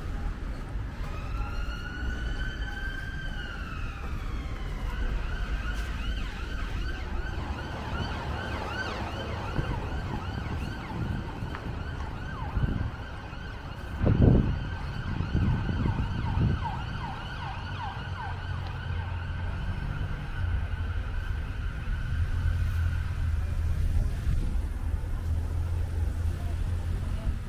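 Emergency vehicle siren: a wail that rises and falls about a second in, then switches to a fast yelp that runs on until a few seconds before the end. Wind rumbles on the microphone throughout, with a loud low thump about halfway.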